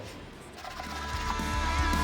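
Background guitar rock music swelling in, growing steadily louder from about half a second in.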